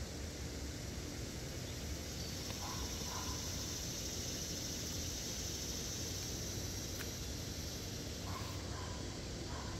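Outdoor ambience with a steady high insect drone that swells in about two seconds in and drops away near the end, over a constant low rumble, with a few short faint chirps and a single light tick.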